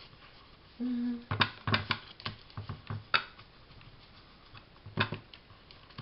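Irregular sharp taps of a handheld ink blending tool dabbing ink onto card edges on a glass craft mat, a few taps a second with pauses between. A short steady hum sounds about a second in.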